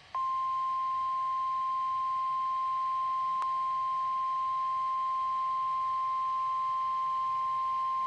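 NOAA Weather Radio 1050 Hz warning alarm tone: a single steady, unbroken beep that starts a moment in and holds at one pitch. It is the tone that signals a warning message is about to be read. A faint click sounds about three and a half seconds in.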